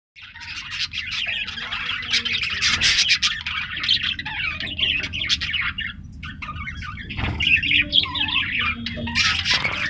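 A flock of budgerigars chattering, chirping and squawking continuously, many birds at once, over a steady low hum.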